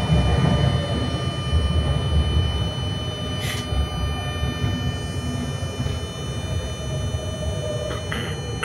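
Interior of a TSR electric multiple unit suburban train in motion underground: low wheel-and-track rumble with steady thin electrical whine tones above it, easing a little in loudness as the train runs into a station. Two brief clicks or squeals about three and a half seconds in and near the end.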